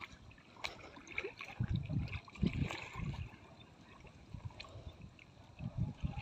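Muddy water sloshing and splashing in irregular surges as a person wading waist-deep pushes and sweeps a woven bamboo basket through it. It is loudest a couple of seconds in.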